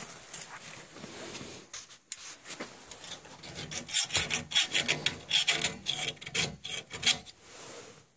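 Sandpaper rubbed quickly back and forth by hand on a circulator pump fitting, cleaning the surface before reassembly, about four scraping strokes a second that stop near the end.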